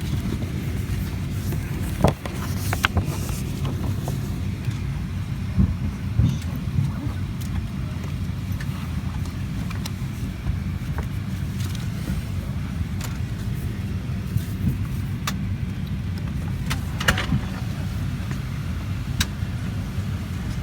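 Steady low rumble of a Boeing 737-900 passenger cabin, with scattered clicks and knocks; the sharpest knock comes about two seconds in.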